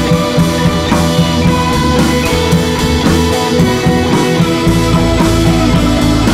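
Background rock music with electric guitar and a steady drum-kit beat.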